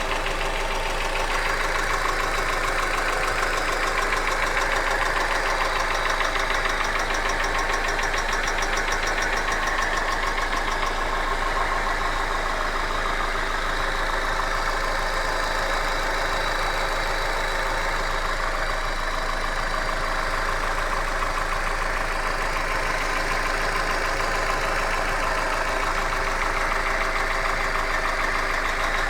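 Hyundai Accent engine idling steadily with a fast, even knock running through it, the engine knock the owner is recording.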